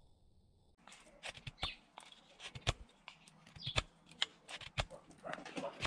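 Homemade knife blade whittling a dry, hard hazel stick: a run of irregular sharp clicks and short scrapes as shavings are cut, starting about a second in.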